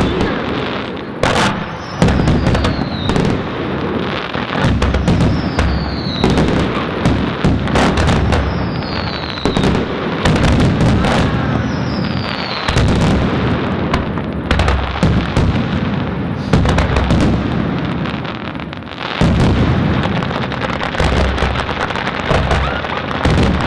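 Fireworks finale: a dense, continuous run of overlapping bangs from aerial shells bursting, with crackle between them. In the first half a whistle falling in pitch sounds four times, roughly every three seconds.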